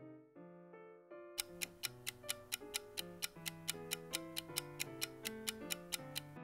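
Countdown timer sound effect ticking evenly, about four ticks a second, starting about a second and a half in, over soft piano background music.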